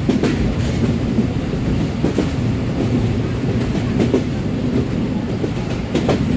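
Passenger train running along the track: a steady rumble, with the wheels clacking over rail joints about every two seconds.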